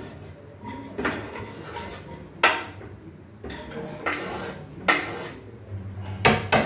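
Chopped onion and garlic being scraped off a wooden cutting board into a metal pot, with about five sharp knocks of the board and utensil against the pot spread over the few seconds.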